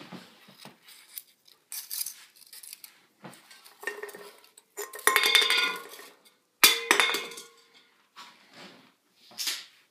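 Kitchenware clattering and clinking on a stovetop, likely aluminium soda cans and a wooden-framed drying screen being moved. There are scattered light knocks, then two louder metallic clatters about five and seven seconds in, each ringing briefly.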